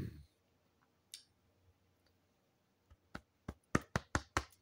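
A quick, irregular run of about eight sharp clicks or taps in the second half, close to the microphone.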